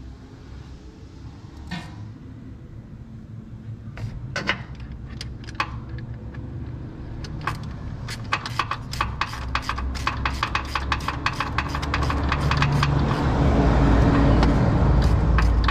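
Rapid metallic clicking from hand tools at work, growing faster and louder, over a low rumble that rises near the end.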